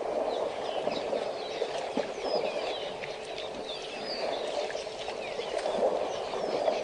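Small birds chirping: many short, quick calls, some rising and some falling, over a steady low rushing noise.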